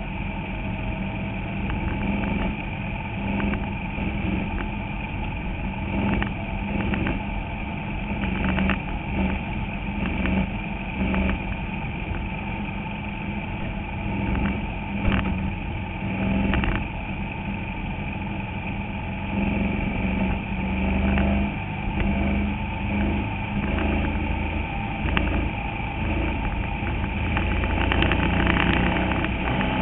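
Bandolero race car's single-cylinder Briggs & Stratton engine running steadily at racing speed, heard from inside the cockpit. The chassis knocks and rattles throughout.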